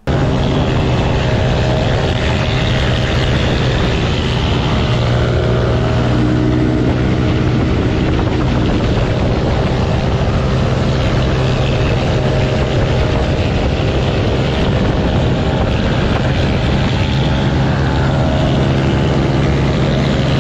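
Motor scooters, Yamaha Aerox, ridden at speed on a road, heard through the racing clip's onboard camera audio: a steady engine drone with a constant low hum under a rushing noise that holds at an even level and starts suddenly.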